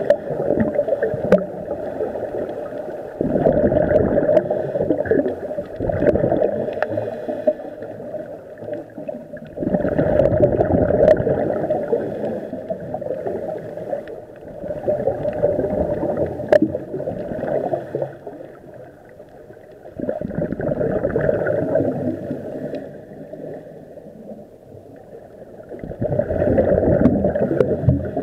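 Scuba diver breathing through a regulator underwater: bursts of exhaled bubbles gurgle about every four seconds, with quieter stretches between breaths.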